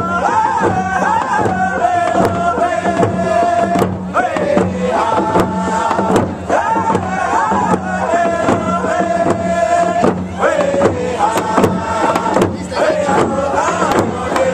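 A group of voices singing a Native round dance song together to a steady drum beat, in repeated phrases that step down from a higher held note to a lower one.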